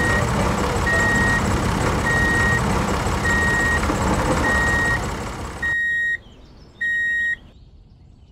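Toy tractor's engine-rumble and reversing-beeper sound: a high single-tone beep, each about half a second long, repeating roughly every 1.2 seconds over a steady engine rumble. The rumble stops about six seconds in, leaving two last beeps on their own.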